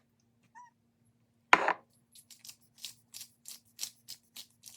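A single knock, then a run of short crisp ticks about three a second: salt and pepper being put on raw chicken.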